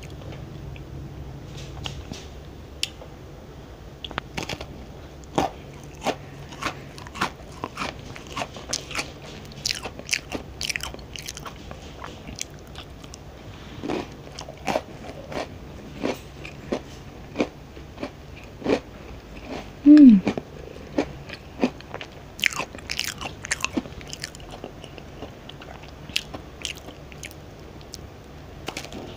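Crunchy cookies being bitten and chewed close to the microphone: sharp crunches, one or two a second. About two-thirds of the way through comes a short, falling hum-like voice sound, the loudest moment.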